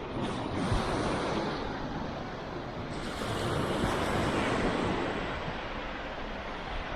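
Ocean surf breaking and washing ashore, with gusty wind buffeting the microphone; the surf swells about three seconds in.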